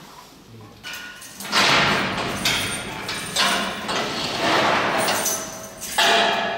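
Steel barred cage door being worked open by hand: a run of loud metal scrapes and clanks with a ringing tone, starting about a second and a half in.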